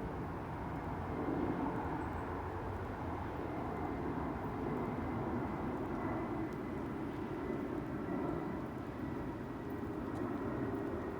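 A steady low rumble of distant engine noise that holds level throughout.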